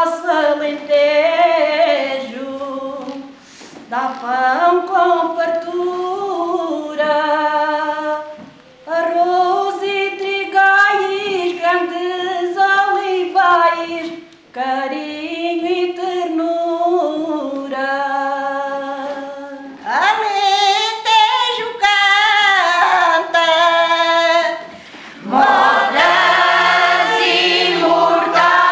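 Cante alentejano sung a cappella by women's voices. A single voice sings the opening lines in short phrases with pauses; a higher voice comes in with a rising slide about twenty seconds in, and the full women's choir joins near the end.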